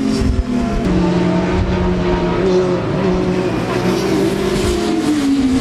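Race motorcycle engines running hard as the bikes lean through corners at a racing circuit. The engine note jumps suddenly shortly after the start, holds steady, then falls in pitch near the end as a bike goes by.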